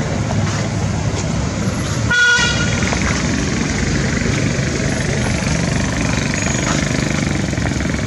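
Steady rumble of motor vehicle traffic, with one brief high-pitched toot about two seconds in.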